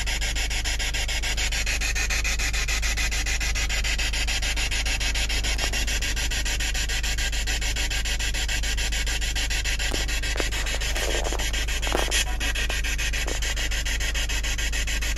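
Steady rushing noise with a low rumble beneath it, with a few faint clicks and a brief scrape about eleven to twelve seconds in.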